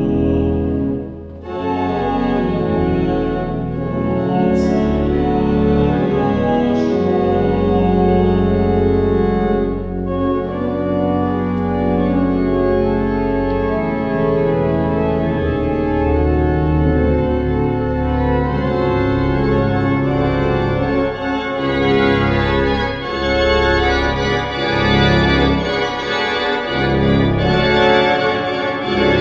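Cathedral pipe organ playing a hymn in sustained full chords over a deep pedal bass, with a brief break about a second in before the chords continue.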